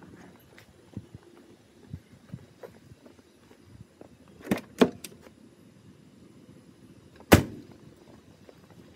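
Footsteps on concrete, then two sharp clacks about halfway through, and a car door slammed shut near the end, the loudest sound.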